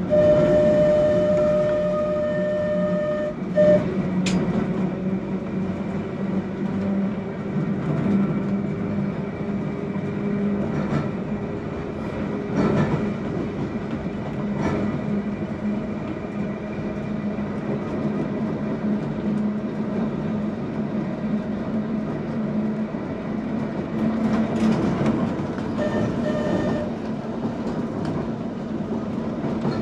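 Manx Electric Railway tram running along the line, heard from the driver's platform: a steady hum from the traction motors and gearing that climbs slowly in pitch as it gathers speed, with clicks over the rail joints. Its horn sounds for about three and a half seconds at the start, gives a short toot just after, and sounds briefly again near the end.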